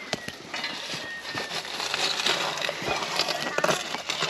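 Charcoal and embers in a small brick wood-fired oven being raked and stirred with a wooden-handled tool: a run of crunching scrapes and small crackling clicks.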